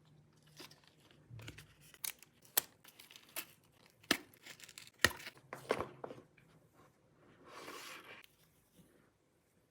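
Laptop packaging being unwrapped by hand: a run of sharp crinkles and taps, then about a second of tearing or rustling near the end.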